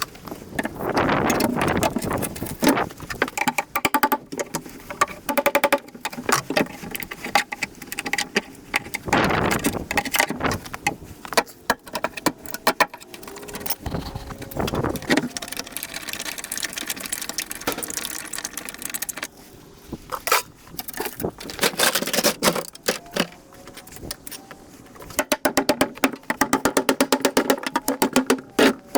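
A freezer's side panels being cracked and pried off by hand: irregular clanks, knocks, scraping and rattling of sheet metal and plastic, with a quick run of clicks near the end.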